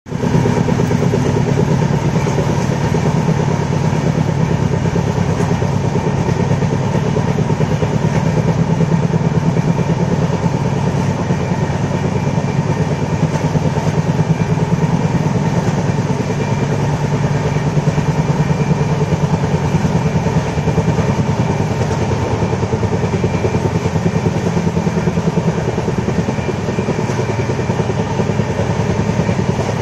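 Passenger train running steadily at speed, heard from inside a carriage by the window: a loud, continuous rumble of the wheels on the track with a fast, even flutter.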